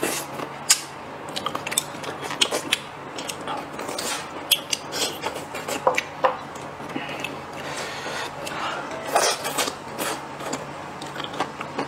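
Close-miked eating: chewing and mouth sounds, with chopsticks and utensils clicking and scraping against ceramic plates and bowls in short, irregular clicks.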